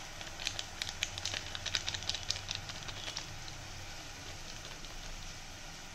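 Water and chopped vegetables simmering in a stainless-steel kadai, sizzling and bubbling, with many small crackling pops in the first three seconds, then a soft steady hiss.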